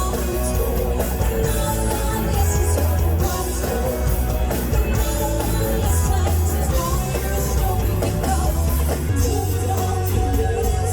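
Rock-style background music with guitar, vocals and a steady beat.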